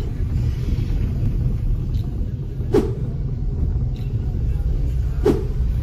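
Low, steady road and engine rumble of a moving car heard from inside the cabin, with two short sharp knocks, one about three seconds in and one near the end.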